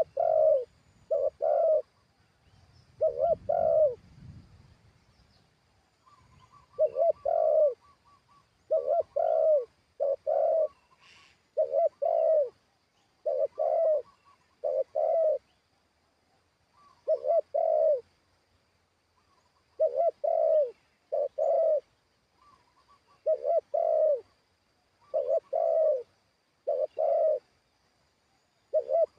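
Spotted doves cooing: short, deep coos in pairs and small groups, repeated every second or two.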